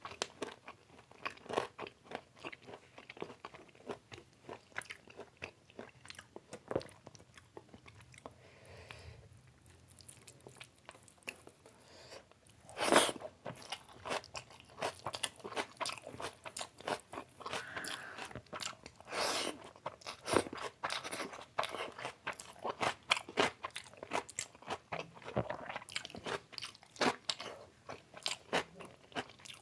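Close-up sounds of a person eating chicken biryani with chicken curry: a steady run of wet chewing, lip smacks and crunchy bites, with two louder bites about 13 and 19 seconds in.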